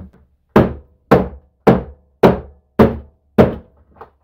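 Hammer striking a plastic blister pack on a workbench to break it open without a knife. Six hard, evenly spaced blows about two a second, each ringing briefly, are followed by a couple of lighter knocks near the end.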